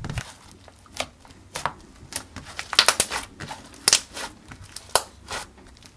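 Pink shaved-ice-textured ICEE slime being squeezed and pressed between the hands, giving a dozen or so irregular sharp clicks and pops as air pockets burst.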